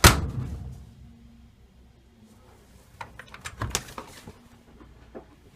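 Creda T520VW tumble dryer door shut with a loud thump at the start, its sound dying away over about a second. A few lighter clicks and knocks follow around three to four seconds in, as the door is worked on its new hinge.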